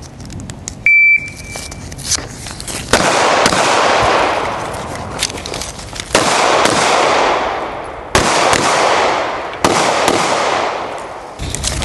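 Electronic shot timer beeping once, a short steady high tone, to start the course of fire. About two seconds later come gunshots: four loud shots roughly two seconds apart, each trailing off slowly, with a few fainter cracks between them.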